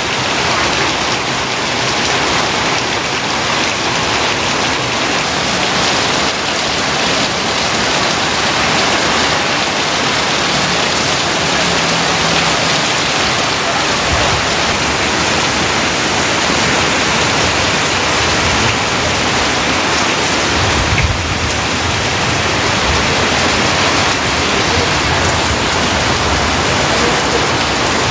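Heavy rain falling in a steady, dense downpour, with a low rumble about two-thirds of the way through.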